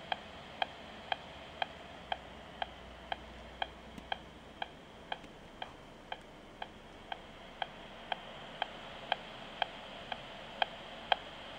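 RF meter's audio output ticking sharply and very regularly, twice a second, over a steady hiss: the pulsed microwave transmission of a Bluetooth earpiece.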